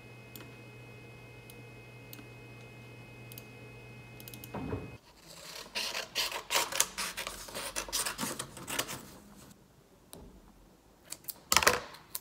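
Sheets of printed paper being handled and rustled in quick irregular bursts, then a short louder rustle or scrape near the end. Before the paper sounds there is a steady low hum with faint ticks.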